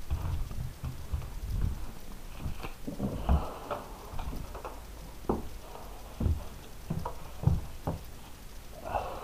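Irregular light knocks and taps with some rustling, spaced unevenly about a second apart, the loudest about three, five, six and seven and a half seconds in.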